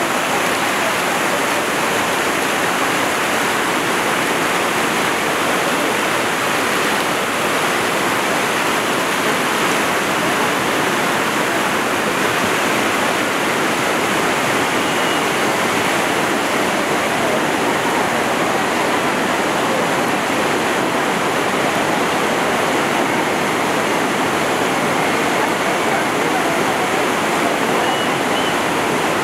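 Whitewater river rapids rushing steadily, a constant, even rush of fast-flowing water.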